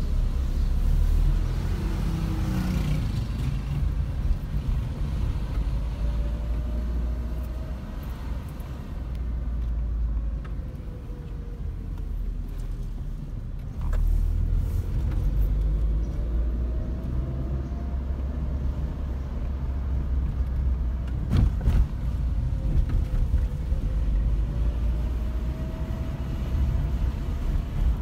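Car engine and road rumble heard from inside the cabin, the engine note rising several times as the car speeds up and dropping back in between. A sharp thump comes about three-quarters of the way through.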